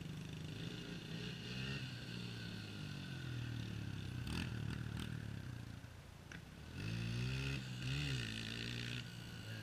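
Dirt bike engines running and revving, their pitch rising and falling with the throttle. The loudest, sharpest revs come about seven to eight seconds in. A few short clicks sound in the middle.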